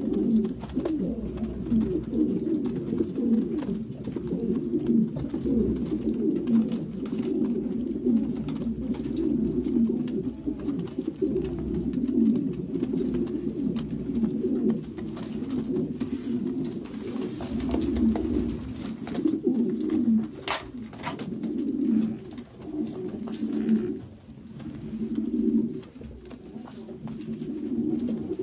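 Several domestic pigeons cooing over one another in an unbroken, low chorus, with a couple of sharp clicks about two-thirds of the way through.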